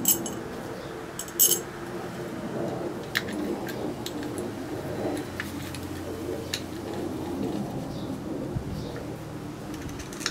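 Metal parts clinking as the clutch pressure plate and springs of a Honda XL250 engine are refitted: two sharp ringing clinks near the start, then scattered lighter clicks of a socket wrench on the clutch bolts.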